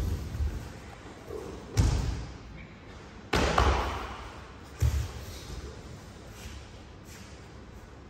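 Grappling judoka thudding against judo tatami mats: three dull thuds about a second and a half apart as the pinned partner struggles to escape a hold-down, the second trailing off in a short scuffle.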